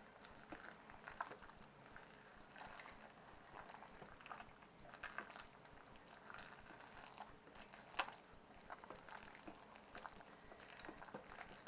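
Faint stirring of frozen peas into thick orzo in a slow cooker pot: soft wet squelching with scattered light spoon clicks, and one sharper knock about eight seconds in.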